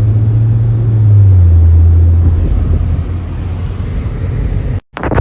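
A long, deep, loud human burp, held for several seconds. Its pitch drops slightly about a second in, and it cuts off abruptly near the end, followed by a short burst of noise.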